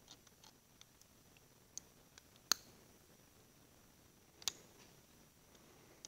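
Faint scattered clicks and light taps of small metal parts being handled while a hydraulic roller lifter is taken apart, with two sharper clicks about two and a half and four and a half seconds in.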